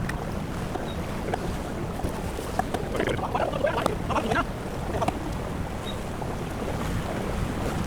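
A fishing boat under way in rough seas: a steady low rumble with wind and water noise. A cluster of brief irregular sounds stands out from about two and a half to five seconds in.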